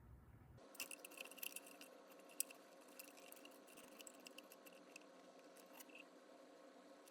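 Near silence: room tone with faint, scattered small clicks and scratches, most of them in the first few seconds.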